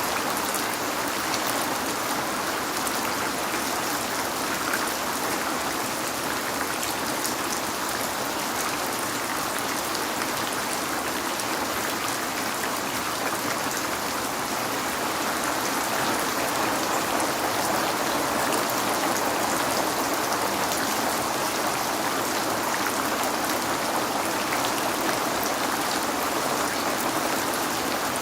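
Steady rain falling on a window, an even hiss of countless drops with fine individual drop ticks scattered through it.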